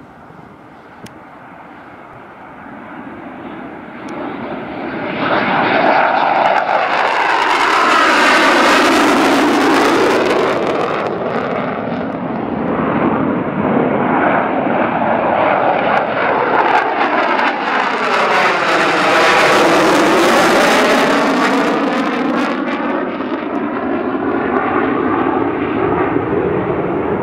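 Panavia Tornados' twin RB199 turbofan engines at take-off power as the jets climb out and pass overhead. A distant jet rumble swells to a loud roar about five seconds in, peaks twice as two jets go by in turn, and stays loud to the end with a sweeping, shifting tone.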